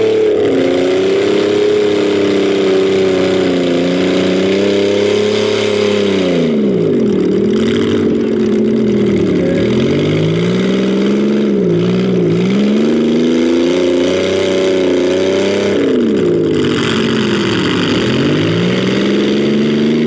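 Stock V8 engines of demolition derby cars revving and easing off. They run fairly steady at first, then from about six seconds in the pitch repeatedly dips and climbs again every second or two.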